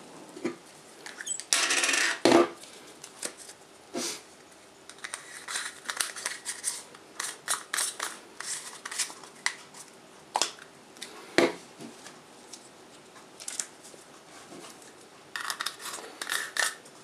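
Handling of a camera lens and a rubber lens hood: scattered small clicks and scrapes of plastic and metal as the hood is screwed into the lens's filter thread. A short rustle comes about two seconds in, and another near the end.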